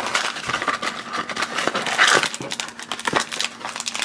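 Crinkling and rustling of blind-box packaging as the box is opened and the black foil bag inside is pulled out and handled.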